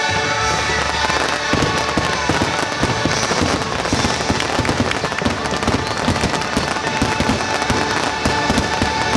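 Aerial fireworks bursting and crackling in a dense, continuous barrage of quick pops and bangs.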